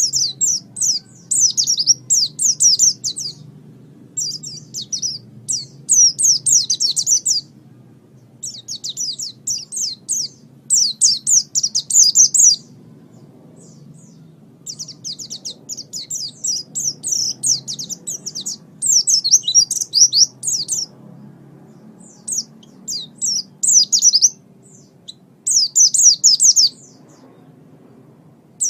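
A songbird singing in repeated phrases of rapid, high, falling chirps, each phrase one to three seconds long with short pauses between. This is a masteran track, played to tutor caged songbirds and lure birds in. A faint low hum runs underneath.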